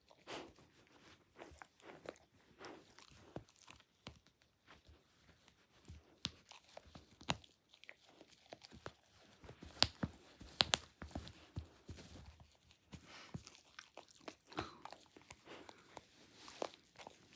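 Dachshund chewing and biting the nose of a plush toy: irregular crunchy bites and crackles, with a few sharper, louder bites about ten to eleven seconds in.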